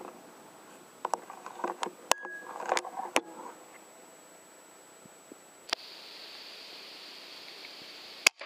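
A run of clicks and knocks with some rustling from about a second to three and a half seconds in, then near the end a single sharp crack of an air rifle firing at a rat.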